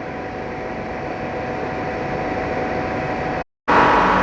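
Refrigeration plant machinery running steadily: a continuous hum with several fixed tones over a hiss. It cuts out completely for a moment near the end and comes back slightly louder.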